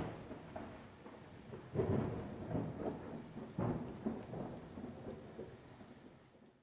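Steady rain with thunder rumbling, swelling about two seconds in and again near four seconds, then fading out at the end.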